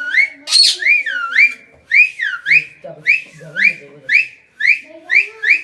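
Cockatiel whistling a repeated run of swooping notes, each dipping and then rising in pitch, about two a second.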